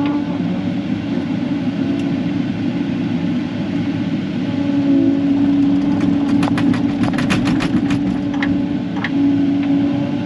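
Kubota KX080 excavator's diesel engine running steadily, heard from inside the cab, with a quick run of sharp clicks and clanks about six seconds in and two more knocks shortly after.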